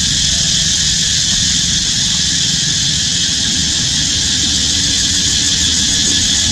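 Steady, high-pitched drone of a forest insect chorus, likely cicadas, over a constant low rumble.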